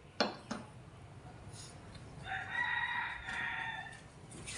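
A metal bowl is set down on a table with two short clinks, then a rooster crows once about two seconds in, a long call lasting over a second.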